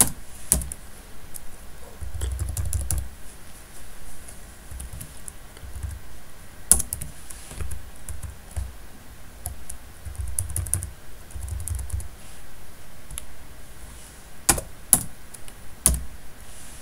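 Computer keyboard being typed on: key clicks in short, irregular bursts, with a few louder, sharper key strikes.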